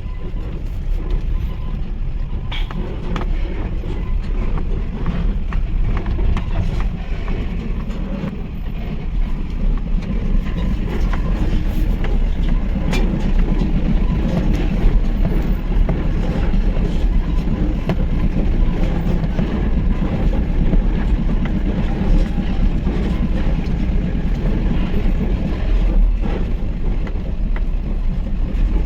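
Mahindra pickup truck driving over rough ground: a steady low rumble of engine and road noise, with scattered knocks and rattles.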